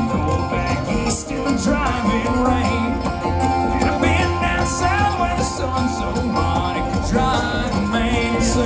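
Bluegrass string band playing live: banjo, mandolin and upright bass.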